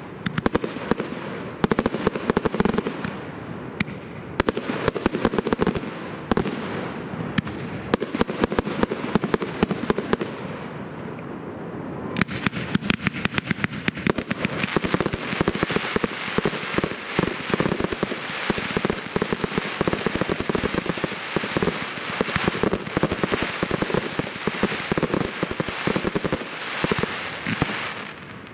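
Professional firework display: aerial shells bursting with loud, echoing bangs every second or two. About twelve seconds in, the sound turns into a dense, continuous crackling, which fades away just before the end.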